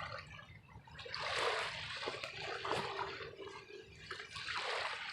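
Small waves washing against the shore, swelling up twice.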